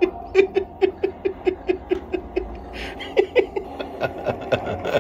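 Soundtrack of a low-budget Egyptian horror series playing from a laptop: a held synth tone under a quick, even pulsing, about five beats a second, that grows less regular after the halfway mark.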